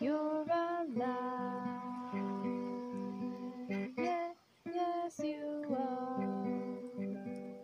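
Acoustic guitar being played, with a woman singing long wordless notes over it that slide between pitches.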